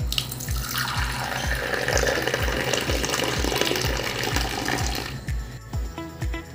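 Milky tea poured in a long stream from a height into a clay cup, a steady splashing pour that froths the tea and stops about five seconds in. Background music with a steady beat plays underneath.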